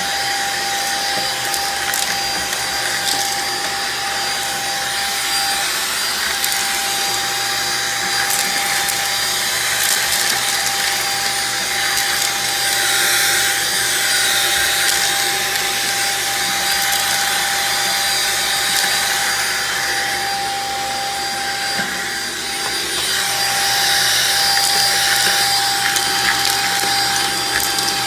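Shark vacuum cleaner running steadily, its motor giving a constant whine under the suction noise. Scattered small clicks and crackles come through as debris, including dry beans, is sucked up off the rug.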